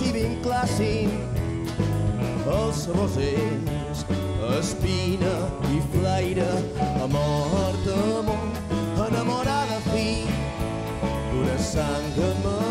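Live rumba-rock band playing: a man singing over strummed acoustic guitar, electric guitar, upright bass and drum kit, with a steady beat.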